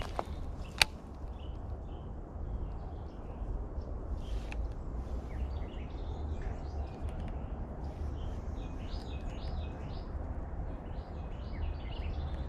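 Small birds chirping, many short calls through most of the stretch, over a steady low rumble. A single sharp click about a second in.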